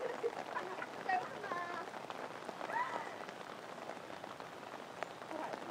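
Water spattering and pattering onto a surface, with short bursts of voices calling out now and then.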